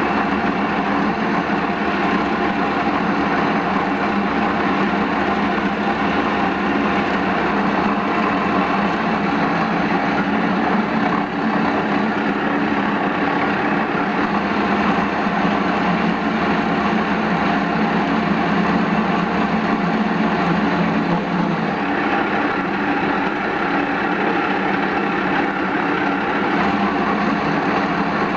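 Metal lathe running and turning a cover from a metal blank: a steady machine drone with several steady tones over the noise of cutting. Its tone shifts slightly a little past two-thirds of the way in.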